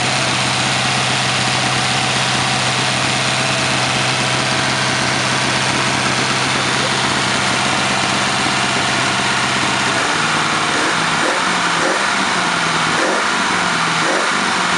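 1949 Ford 8BA flathead V8, breathing through dual Holley 94 carburettors and exhausting through headers with Harley-Davidson mufflers, idling steadily. About ten seconds in, the engine speed rises and falls unevenly for a few seconds as the carburettor is worked, then settles back to a steady idle.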